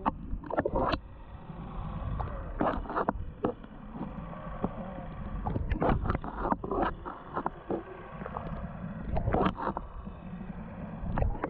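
Water sloshing and slapping against the hull of a small fishing boat, with scattered short knocks and clatters on board.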